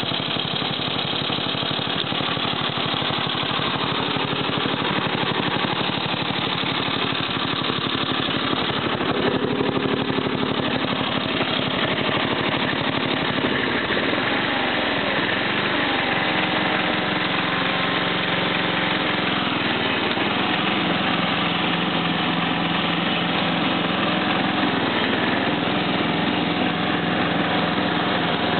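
Simplicity 4211 riding lawn tractor's engine running steadily; about halfway through the throttle lever is pushed up and the engine speed rises over a few seconds, then holds steady at the higher speed.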